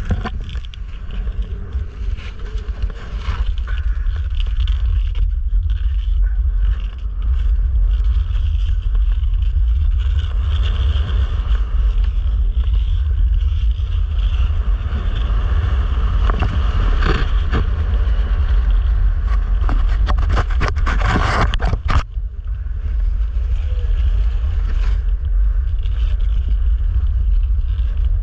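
Heavy wind rumble on the microphone while gliding fast over smooth black ice, with the hiss and scrape of blades on the ice. The scraping hiss grows louder for several seconds and cuts off suddenly about three-quarters of the way in.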